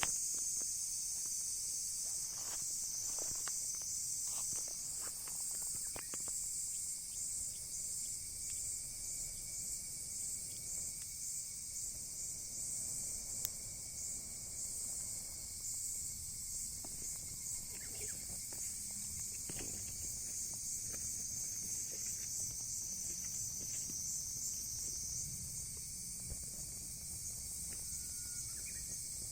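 A steady chorus of insects chirping in a high, rapidly pulsing trill, with scattered sharp crackles and pops from a burning wood fire.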